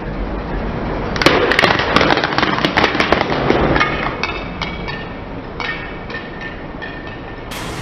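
A car tyre rolls over hollow plastic M&M-shaped shells and crushes them: a dense run of sharp cracking and crunching for about three seconds, then a few scattered cracks as the pieces break and settle. The car's engine runs low underneath.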